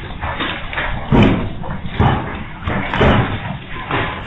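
Hailstorm: a steady clatter of hail and rain with three heavy thuds of hailstones striking a hard surface close to the microphone, about a second apart.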